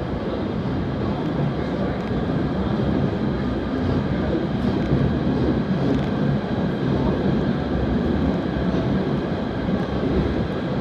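PATH PA-5 rapid-transit car running at speed through a tunnel, heard from inside the car: a steady, unbroken noise of wheels on rail and running gear, heaviest in the low end.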